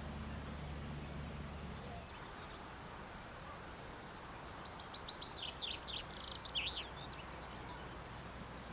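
A songbird singing one quick twittering phrase of rapid high notes about halfway through, over steady outdoor background noise. A low steady rumble underneath stops about two seconds in.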